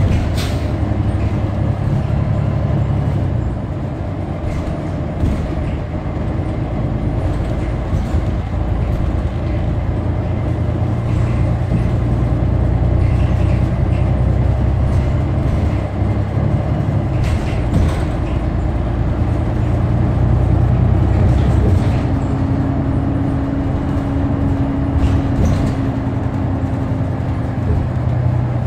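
New Flyer XD40 Xcelsior city bus running: a steady low engine drone that swells and eases as the bus speeds up and slows, with a few sharp clicks or knocks. A steady higher whine joins for about five seconds, starting some 22 seconds in.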